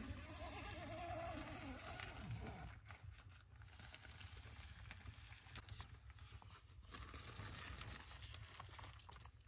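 Tent fabric and mesh door rustling and crinkling as they are pulled aside, with scattered soft clicks over a low rumble. In the first two seconds or so there is a faint low pitched voice-like sound that drops in pitch as it ends.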